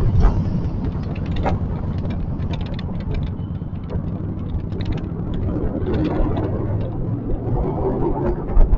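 Riding noise picked up at the handlebars of a moving two-wheeler in city traffic: a steady low rumble of wheels and wind with many small rattles and clicks, and a sharper knock near the end.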